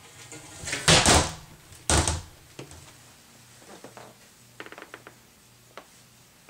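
An interior door being opened and handled: two loud rushing sounds about a second apart, then a few light clicks.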